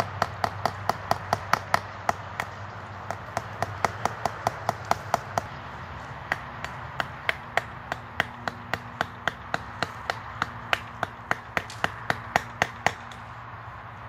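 Hammer driving a nail into a dead tree trunk: quick, steady blows about three to four a second, with two short pauses about two and a half and five and a half seconds in.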